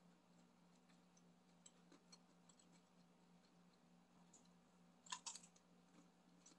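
Faint wet chewing sounds, with a short cluster of crisp crunches about five seconds in as a bite of sauce-coated fried food is taken. A low steady hum runs underneath.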